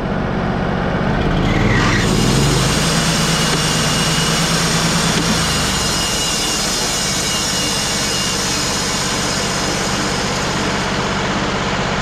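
Wood-Mizer LT35 HD sawmill's Kohler engine running steadily. About two seconds in, the bandsaw blade is engaged and a steady high whir and hiss of the new blade running free on its wheels joins the engine, a tracking test with no log being cut.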